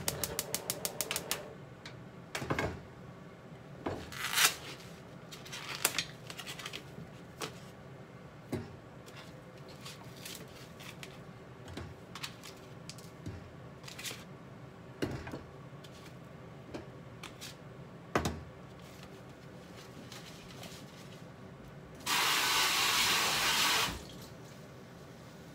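Raw pork cartilage pieces being set into a frying pan, with scattered knocks and clicks of meat, pan and utensils. About 22 seconds in, a tap runs for about two seconds and is shut off abruptly; this is the loudest sound.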